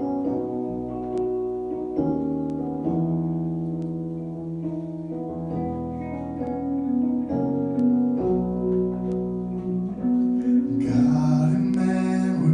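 Piano playing slow, held chords as the accompaniment to a worship song; a singer's voice comes in near the end.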